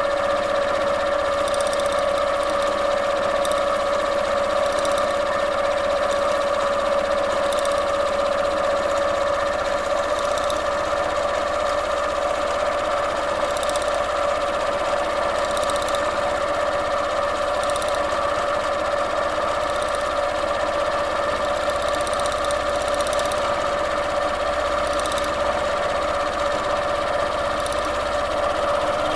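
Domestic sewing machine running at one steady speed while free-motion quilting through layered fabric, its motor giving an even whine.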